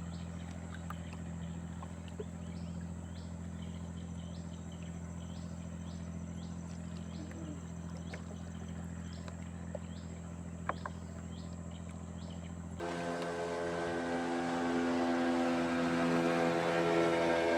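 A small engine running steadily with a low hum, short high chirps repeating over it. About thirteen seconds in the sound changes abruptly to a louder engine, its pitch rising as it speeds up.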